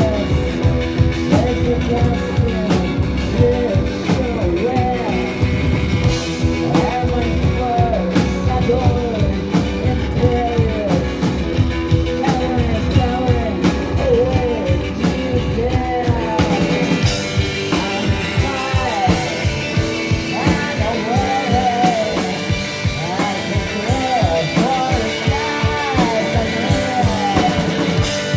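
Rock band playing live: drums, bass and electric guitar, with singing and a melody line that bends in pitch. About sixteen seconds in, the low end drops back and the cymbals come up brighter.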